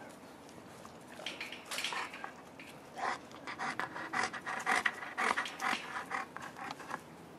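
Five-week-old Boerboel puppies yipping and squealing as they play, a quick string of short high-pitched calls that is densest from about three seconds in and stops shortly before the end.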